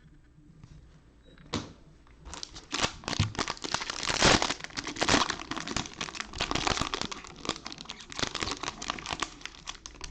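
A 2020 Absolute Football fat pack's wrapper being torn open and crumpled by hand, a dense run of crinkling and crackling that starts about a second and a half in.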